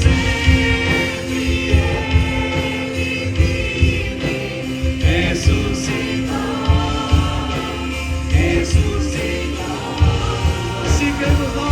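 Gospel worship music with a choir singing over a band with a steady bass and beat.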